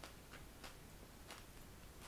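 Faint, crisp clicks about twice a second at slightly uneven intervals: someone chewing crunchy stir-fried bean sprouts close to the microphone.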